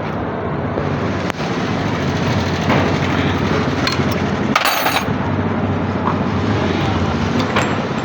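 Steady drone of motor vehicle engines running, with a few sharp metallic clicks and a short hissing burst about halfway through.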